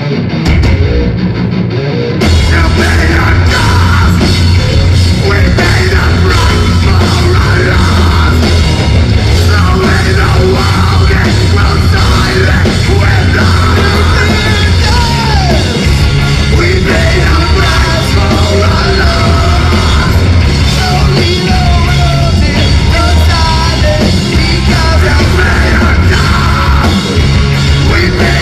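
Live heavy metal band playing loud, distorted music. A guitar plays nearly alone at first, the full band comes in about two seconds in, and yelled, sung vocals run over it.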